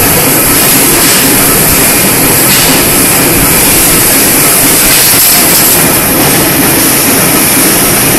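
Steady, loud mechanical running noise with a strong hiss from an automatic servo-hydraulic square-tube bending machine at work, with no distinct strokes or clanks.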